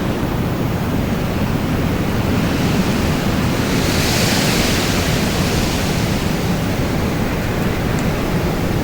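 Wind blowing steadily, with a gust swelling to a higher hiss about four seconds in and easing off again.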